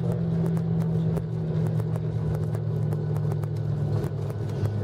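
Cabin noise of a Boeing 737-800 on its landing rollout: the CFM56 engines' steady drone, dropping in pitch about four seconds in as they spool down, with faint regular clicks over it.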